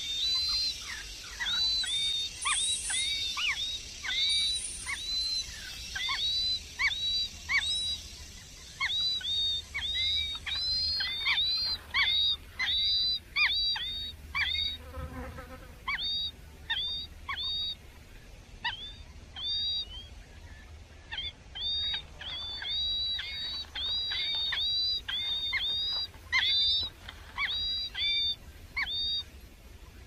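Songbird nestlings begging: a long run of short, thin, high chirps, rapid and crowded at first, then coming in sparser clusters with pauses. A steady high insect-like hiss sits behind the first third and then fades.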